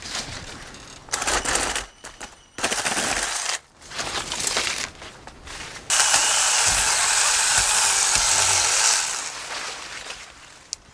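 Mini cordless electric chainsaw cutting a branch: three short bursts of cutting, then a longer cut of about three seconds starting about six seconds in, which dies away near the end.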